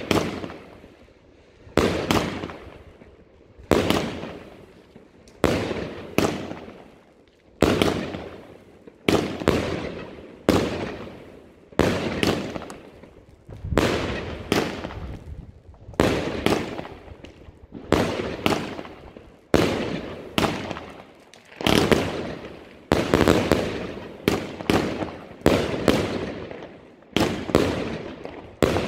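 Evolution Fireworks consumer cake firing shot after shot: each aerial burst is a sharp bang that dies away over about a second. The shots come roughly every two seconds, then quicken to about one a second in the last third.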